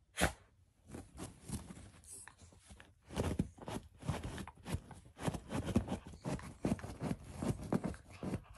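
A Shiba Inu pawing rapidly at a pillow with both front paws, a run of rustling, scratchy strokes at about three a second that grows busier partway through. A single sharp knock just after the start is the loudest moment.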